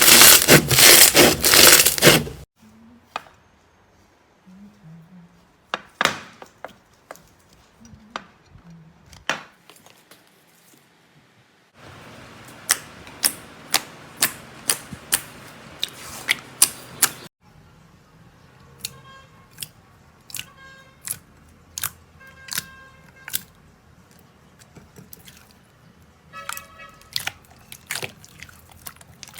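Slime being handled and pressed: a loud rasping scrape that stops after about two seconds, then scattered soft clicks. Later come a stretch of crackling pops over a hiss and a run of sharp clicks with short ringing tones.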